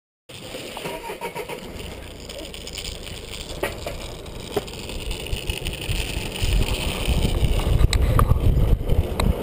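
Wind buffeting an action camera's microphone with the rumble of longboard wheels rolling fast over asphalt, the rumble growing louder over the last few seconds, with a few brief sharp ticks.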